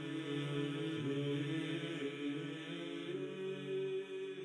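Background music: a choir chanting in low, long-held notes, slowly fading.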